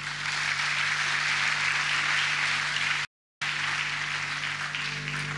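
A large audience applauding: dense, steady clapping that eases off slightly near the end, over a faint steady hum. The audio cuts out completely for a moment about three seconds in.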